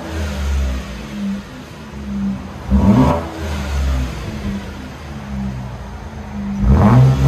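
2010 Cadillac SRX 3.0L V6 with its muffler deleted, exhaust run through a single 2.5-inch pipe with the factory converters and resonator kept, idling and then blipped twice, about three seconds in and near the end. The exhaust note rises and falls with each quick rev.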